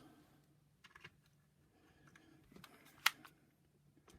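Light clicks and taps from handling the vacuum cleaner's power nozzle parts and screws, with one sharper click about three seconds in.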